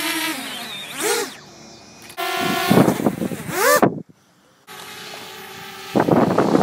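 Small quadcopter drones' propellers whining close by, in several short clips spliced together. The pitch glides up and down as the drones throttle around a hand launching and catching them, and each clip cuts off abruptly.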